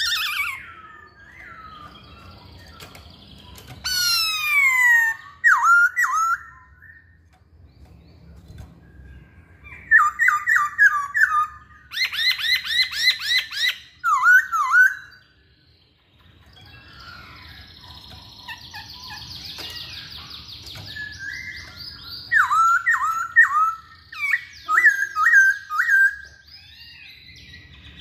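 Black-throated laughingthrush (poksay Hongkong) singing loud bouts of clear whistled phrases: falling slurred whistles and quick runs of repeated notes, with quieter pauses between bouts.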